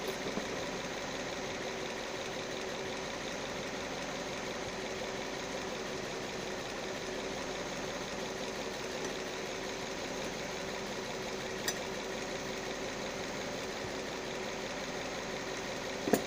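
Opel Mokka engine idling steadily and evenly after an ignition coil module repair, with the misfire popping gone. A couple of short clicks come in the second half.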